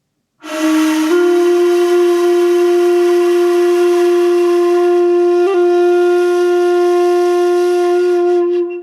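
A breathy flute-like wind instrument plays one long held note. It enters after a short silence, steps up slightly in pitch about a second in, holds steadily, and fades away near the end.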